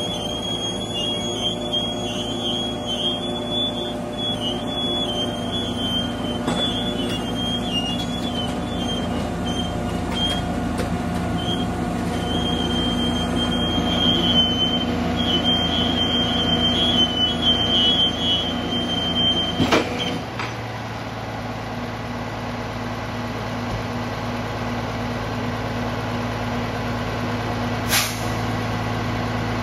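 Rollback tow truck's engine running steadily while its winch pulls a non-running car up the tilted deck, with a high, broken squeal over it. About two-thirds of the way through the squeal stops with a sharp click and the engine settles to an idle; another sharp click comes near the end.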